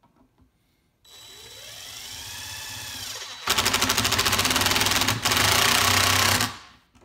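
Cordless DeWalt impact driver driving a screw through a loop plate into a snowmobile ski loop. The motor spins up with a rising whine, then about halfway through the impact mechanism kicks in with rapid hammering as the screw tightens, breaks off once for a moment, hammers again and stops suddenly.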